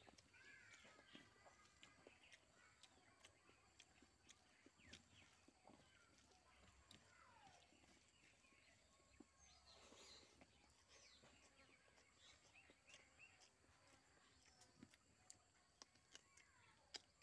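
Faint birds chirping and calling in short sliding notes, with scattered soft clicks and smacks from eating rice and curry by hand. There is one sharper click near the end.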